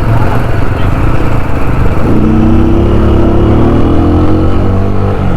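Motorcycle engine running while riding, with rushing road and wind noise over the microphone. About two seconds in, a steadier pitched engine tone joins and fades again near the end.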